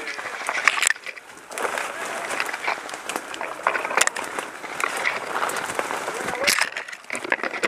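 Leaves and branches brushing and crackling against gear as a person pushes through dense undergrowth on foot, with twig snaps and footfalls.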